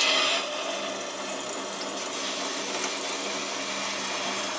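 Water rushing through household copper supply pipes and a water heater as the supply is turned back on after a solder repair, a steady hiss with a faint low hum while air is being pushed out of the lines.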